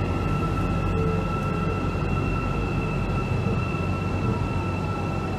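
Metro train running, heard from inside the car: a steady rumble with a steady high-pitched whine over it.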